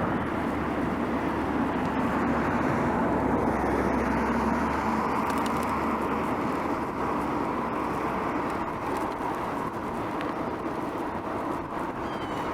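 Steady road noise heard from a moving bicycle: traffic and tyre noise. A low rumble from a passing vehicle fades out about halfway through.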